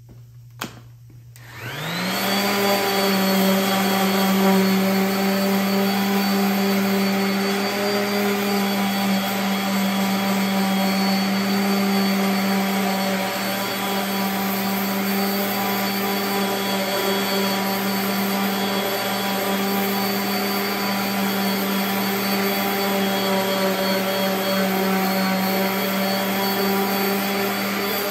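Electric random orbital sander switched on about a second and a half in, its motor winding up to speed and then running steadily as it sands the edge of a walnut board. A single sharp click comes just before it starts.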